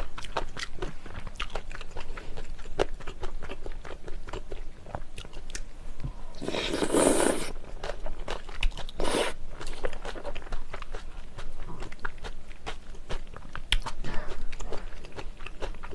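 Close-miked chewing of jjajangmyeon, black-bean-sauce noodles with vegetables, with many small wet mouth clicks. A louder slurp lasts about a second, starting about six and a half seconds in, and a shorter one follows near nine seconds.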